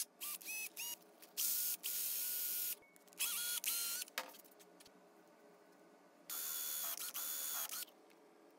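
Electric drill motor whining in several short trigger pulls, the pitch stepping up as each run spins up and cutting off abruptly, as the drill spins and bores a small wooden disc.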